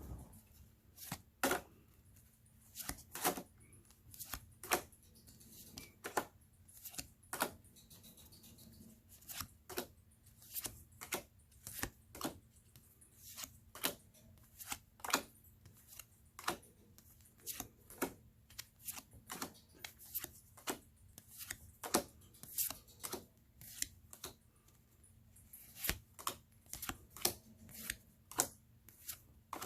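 Board game cards being laid down one after another on a table, each landing as a sharp tap, irregularly about one or two a second.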